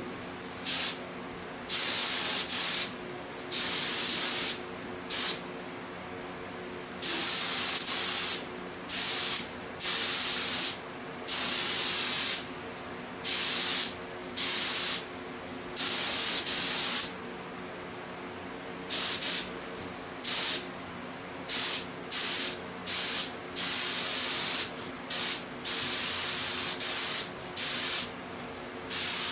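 Gravity-feed paint spray gun on compressed air hissing in repeated bursts as the trigger is pulled and released: short blips and longer passes of up to about two seconds, each stopping sharply. A steady low hum runs underneath.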